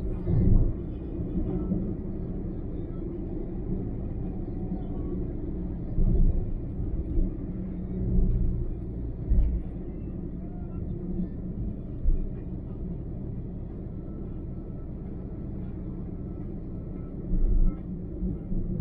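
A car driving on a highway: a steady low rumble of road and engine noise, with a few brief low thumps between about six and twelve seconds in and again near the end.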